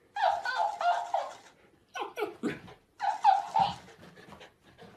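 A dog's whines and grumbles, repeated back in a higher-pitched voice by a talking plush hamster toy, in three short bouts. There is a low thump about three and a half seconds in as the dog jumps away.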